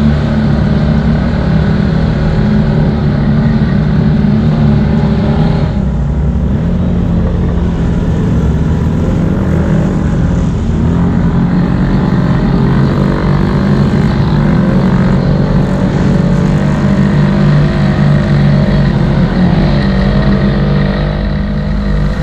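CFMoto 800 ATV's V-twin engine running steadily under throttle, close to its mounted camera. Its pitch rises and falls slightly a few times as the throttle changes.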